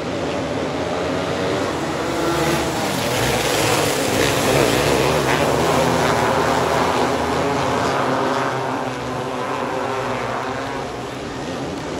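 A pack of small winged sprint cars racing, many high-revving engines at once. The sound swells as the pack sweeps past a couple of seconds in, then eases a little toward the end.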